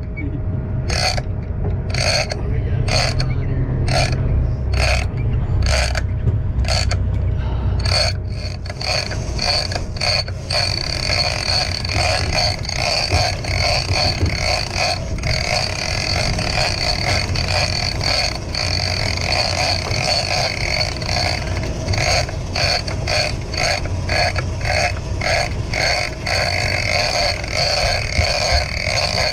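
Shimano Tiagra 130 lever-drag reel being cranked. For the first eight seconds it clicks rhythmically, a bit more than once a second, then turns into a steady high whine with fast ticking from the gears. A low rumble runs underneath.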